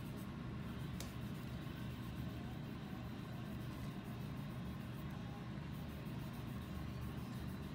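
A steady low rumble of background noise, with one faint click about a second in.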